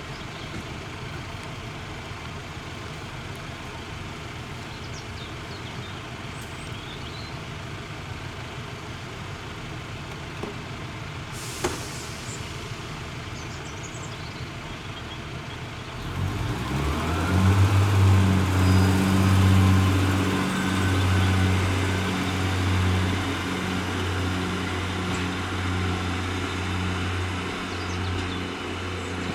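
Diesel engine of a Class 143 Pacer railbus idling with a steady low rumble, with a single sharp click about twelve seconds in. About sixteen seconds in the engine opens up and runs on under load with a steady low drone.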